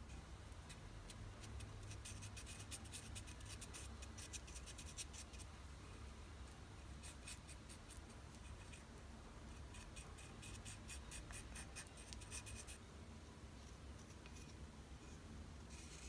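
A wooden stick scraping and stirring on a wooden board as two-part glue is mixed, in two stretches of quick, fine scratching, over a low steady hum.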